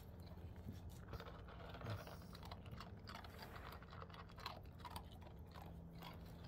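Dog chewing hand-fed food: faint, irregular crunches.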